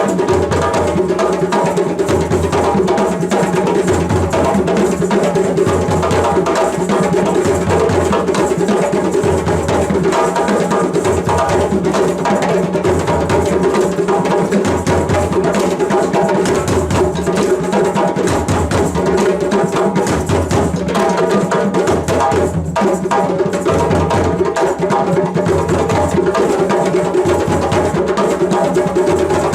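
Music led by drums and percussion, with a low drum stroke keeping a steady beat about once a second under sustained pitched instruments or voices.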